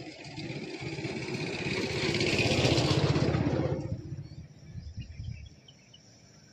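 A motor vehicle's engine passing by: it grows louder, is loudest about two to three seconds in, then fades away by about four seconds, with a brief faint swell again a second later.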